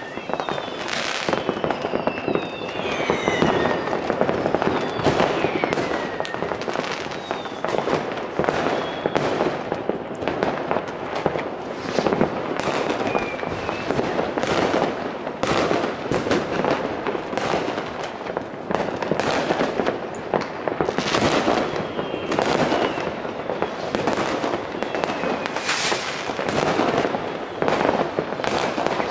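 New Year's Eve fireworks: a dense, unbroken barrage of rocket bangs and firecracker reports, many overlapping at once, with a few whistles falling in pitch in the first several seconds.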